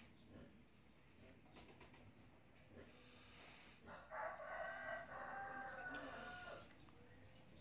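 Low background hush, then a rooster crowing once about four seconds in, a single long call of over two seconds.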